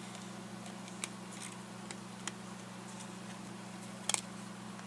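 A few sharp clicks and taps as the GPS's small plastic parts are handled, the loudest a quick double click about four seconds in, over a steady low hum.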